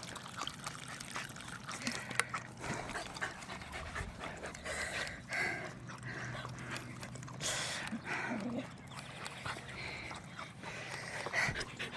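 Dogs panting, winded from playing fetch in humid weather.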